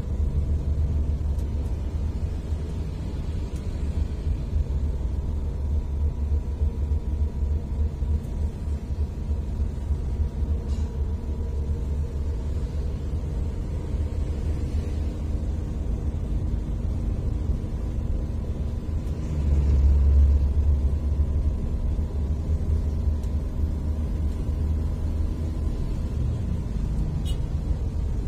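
Steady low rumble of a vehicle riding along a road, engine drone mixed with road and wind noise, swelling louder for a couple of seconds about twenty seconds in.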